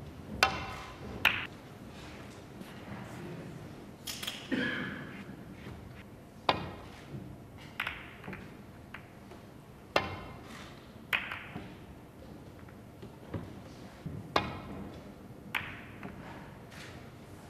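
Snooker balls in play: sharp clicks of the cue tip on the cue ball and of ball striking ball, about a dozen spaced irregularly, each with a short ring.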